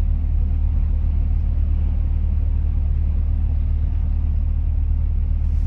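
Semi truck's diesel engine running steadily, heard from inside the cab as a low, even drone that does not change.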